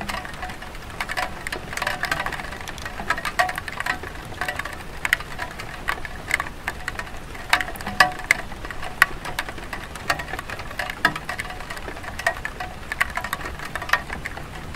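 Light rain falling on a clay tile roof: a steady hiss of rain with many irregular drop ticks.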